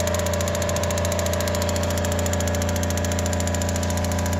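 Gas water heater running under test: a steady low hum with a held tone, and a fast, even ticking over it.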